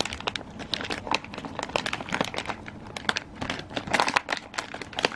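Plastic packaging bags crinkling and rustling with many small irregular crackles, as hands dig through a box of bagged cables.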